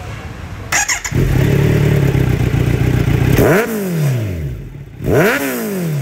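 Kawasaki Z900 inline-four engine through a titanium full-system exhaust: it starts with a brief clatter about a second in and settles into a steady idle. It is then blipped twice, each rev rising sharply and falling back to idle.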